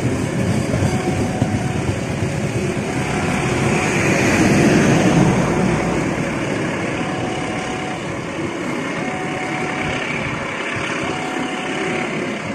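Coaches of a long-distance passenger train running past close by, wheels rumbling steadily on the rails. The rumble grows louder about four to five seconds in, then eases off a little.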